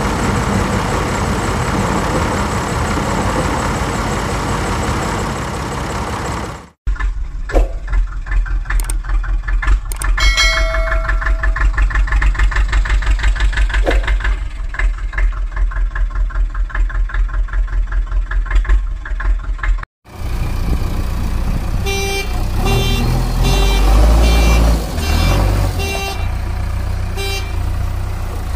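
Dubbed vehicle engine sound effects in three sections cut hard one into the next: a steady rushing engine noise, then a fast rhythmic chugging engine with a deep low rumble, then engine noise with short repeated horn-like toots.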